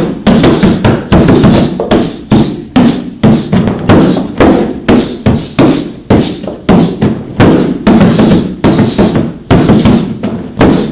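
Rapid flurry of hand and elbow strikes on a black padded strike pad lying on the floor: palm heels, hammer fists and elbows landing hard, about two to three thuds a second without a break.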